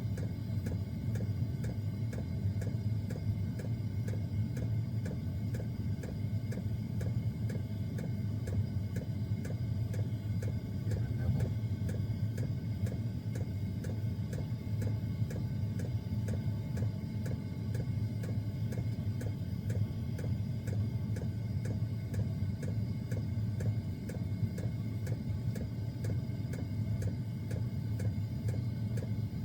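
Small diesel air heater running steadily: a low combustion and fan hum, with the regular ticking of its fuel pump, a few clicks a second.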